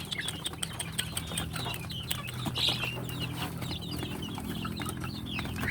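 A group of 17-day-old kampung chicks peeping and clucking, many short quick chirps overlapping, over a steady low hum.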